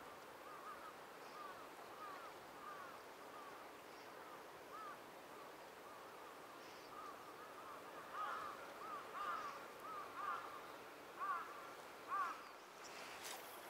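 A bird calls over and over in short, clear, arching notes, about two a second, growing louder and busier in the second half. The calls sit over a steady faint hiss, and a brief rustle comes near the end.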